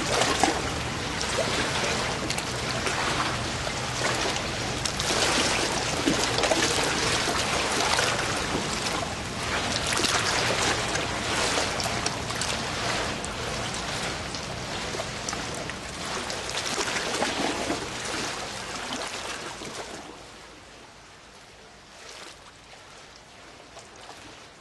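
Rushing, splashing water noise that swells and ebbs, over a faint low steady hum, dropping to a much quieter level about twenty seconds in.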